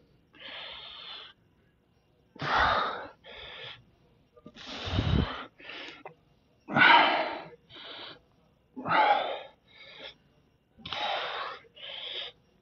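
A man breathing hard through cable biceps curls: a forceful exhale about every two seconds, one per rep, each followed by a quick inhale.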